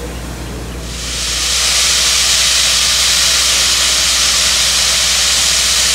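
Steam locomotive venting steam: a loud, steady hiss that starts about a second in, over a low steady hum.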